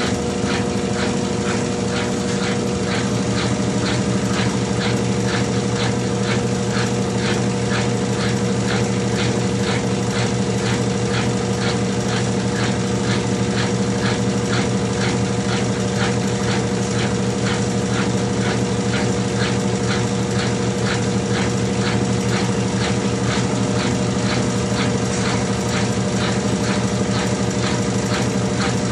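Consul 12 kg CWH12 top-loading washing machine running steadily in its spin cycle: a constant motor hum with a regular ticking about twice a second.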